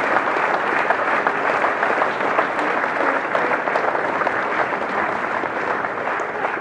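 A large crowd clapping: steady, sustained applause.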